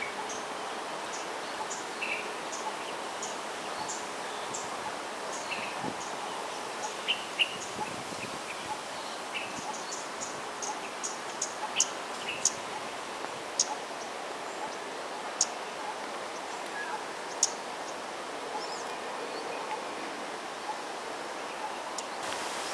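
Outdoor ambience: a steady wash of background noise with short, high bird chirps repeating through it, coming quicker and sharper in the middle.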